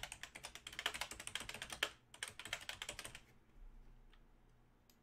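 Typing on a computer keyboard: a quick run of keystrokes lasting about two seconds, a short pause, then a second shorter run, followed by a few scattered faint clicks.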